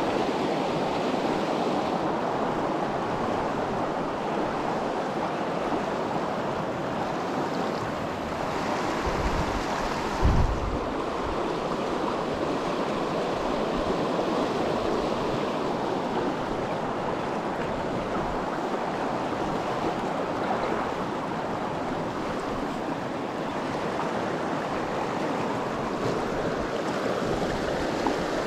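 Mountain stream rushing steadily over a rocky riffle, with one brief low thump about ten seconds in.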